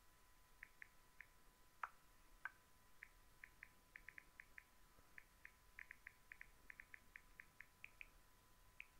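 Near silence, with a faint steady high hum and many short, high chirps coming irregularly and growing more frequent after the first few seconds.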